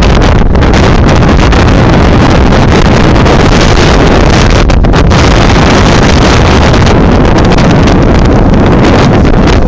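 Blizzard wind buffeting a phone's microphone: loud, continuous wind noise that nearly overloads the recording, with a brief lull about five seconds in.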